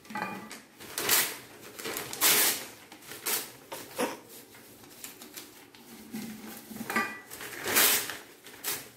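Small pieces of newspaper crackling and rustling as they are crumpled and pushed into the mouth of a stainless steel bottle, with light metallic taps and clinks on the bottle. The sounds come as a string of short, separate bursts.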